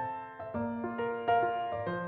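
Background music: a slow, gentle piano ballad, single notes and chords struck about every half second and left to ring.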